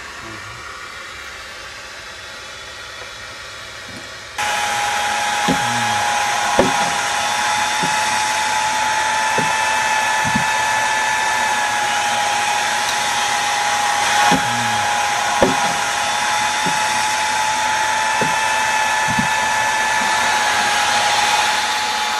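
A power tool used for wood carving starts about four seconds in and runs steadily with a high, unchanging whine, with a few short knocks over it.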